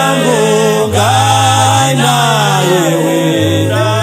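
Gospel praise-and-worship song: voices singing held, sliding notes over a backing band, with the bass stepping between long held notes.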